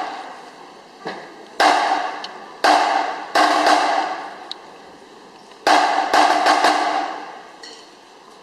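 A string of loud, sharp percussive hits, each ringing out and dying away over about a second in a large echoing hall. They come in two clusters, and the last one fades near the end.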